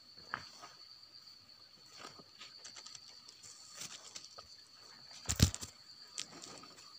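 Rustling and light knocks of something being handled and moved, with one loud thump a little past the middle, over a steady high-pitched whine.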